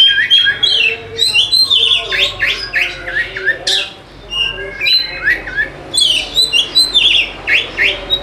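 Oriental magpie-robin (kacer) singing a fast, continuous song of sharp whistled notes, quick rising and falling sweeps and harsh chattering calls. This is the full, non-stop 'gacor' song that is played to coax a reluctant magpie-robin into singing.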